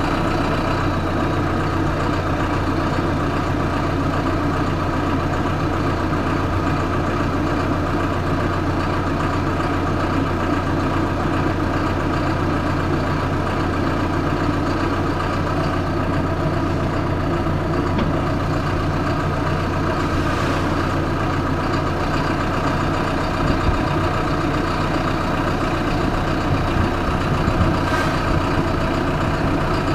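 Heavy engine idling steadily with an even hum.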